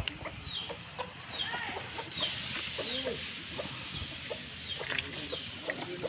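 Chickens clucking repeatedly, with short high peeping calls among the clucks. About two seconds in, a hiss rises for a couple of seconds as rice is poured from an aluminium bowl into a wok of boiling water.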